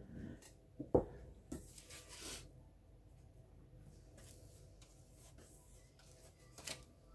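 A glass tumbler set down on the tabletop with one sharp knock about a second in, then soft rubbing and scraping as a flat brush is loaded with acrylic paint on a paper-plate palette, with a few faint ticks of handling.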